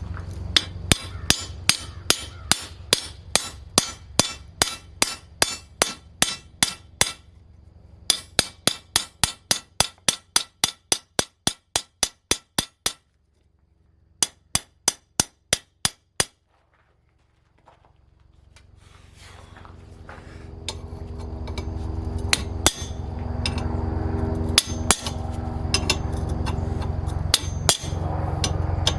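Hammer striking hot steel on an anvil in quick, even runs of blows, about three a second, with short pauses between runs. In the second half a steady rumbling noise with a low hum swells up and continues, with occasional blows over it.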